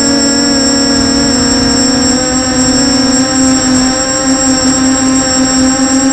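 FPV multirotor's brushless motors spinning 6045 bullnose propellers, heard from the onboard camera: a steady buzzing whine that wavers slightly in pitch, with a thin high steady whistle above it.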